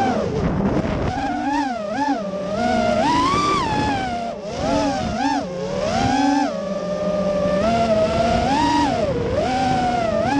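FPV racing quadcopter's brushless motors and propellers whining, the pitch swooping up and down over and over as the throttle is punched and eased.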